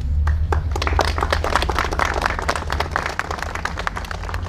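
A crowd of people applauding: dense clapping that starts just after the start and thins out toward the end.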